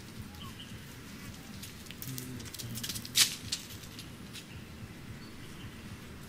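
Outdoor ambience: a low steady background with a run of short crackles and one sharp click a little past the middle.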